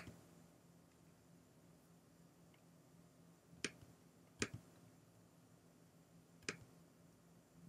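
Near silence with faint computer mouse clicks: two in quick succession about halfway through, then one more a couple of seconds later.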